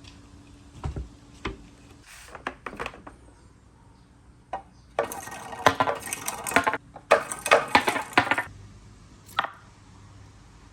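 Marbles running down a wooden marble run: scattered single clicks and knocks, then two bursts of rapid clattering about halfway through, as the balls tumble over wood and against each other.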